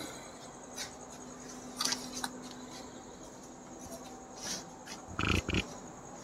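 Crickets chirping steadily in the background, with scattered rustles and light knocks of handling and a louder pair of dull thuds about five seconds in.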